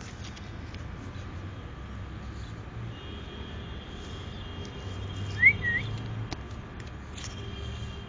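A tailorbird gives one short call of two quick rising whistled notes a little after halfway, over the low rumble of the camera being handled among leaves.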